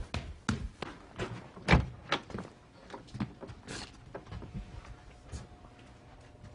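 Front door being shut, then a run of footsteps and light knocks, about two a second. A faint steady tone comes in about four seconds in.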